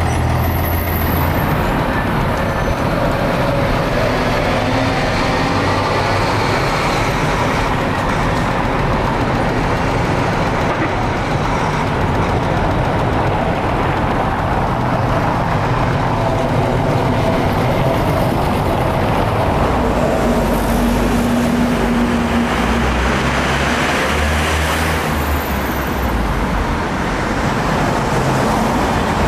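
City street traffic: cars, vans and buses with their engines running, among them a Karosa B732 city bus with its diesel engine running.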